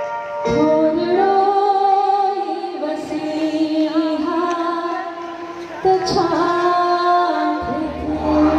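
A woman singing a Sindhi song into a microphone, holding long notes with gliding ornaments, over a harmonium accompaniment. A low steady hum joins near the end.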